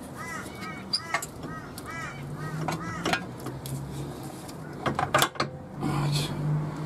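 Ratchet and socket clicking and clinking on steel suspension bolts as they are undone during a front lower control arm change, with a quick run of sharp metal clinks about five seconds in as a bolt comes free. A repeated high chirping sounds in the background through the first half.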